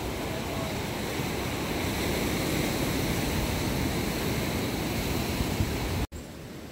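Sea surf washing in over a rocky shore, a steady rushing noise; it cuts off suddenly near the end.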